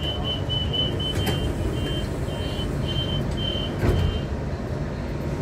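Metro train standing at a station with its low steady hum, while a door warning repeats a short high electronic beep, quickly at first and then about twice a second. The beeping stops just after a thud about four seconds in.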